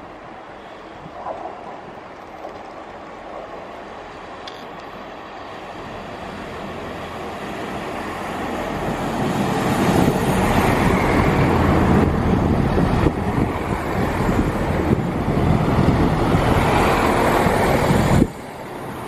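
A three-car Class 165 Networker Turbo diesel multiple unit arriving along the platform, its engines and wheels on the rails growing steadily louder as it approaches and runs close past. The sound cuts off suddenly near the end.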